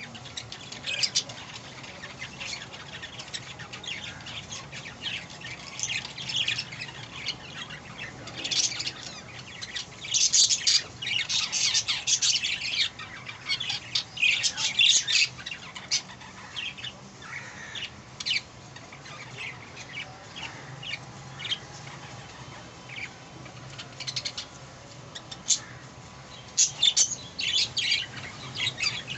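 Budgerigars chirping and squawking in many short, high, scratchy calls. The calls are busiest in a stretch around the middle and again near the end.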